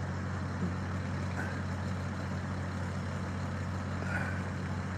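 Steady low hum of an idling engine, even and unbroken.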